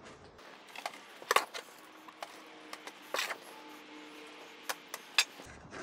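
A shovel scooping damp shredded-cardboard worm bedding from a wooden wagon bed into plastic buckets: a handful of short scrapes and knocks, the loudest about a second and a half in and again about three seconds in.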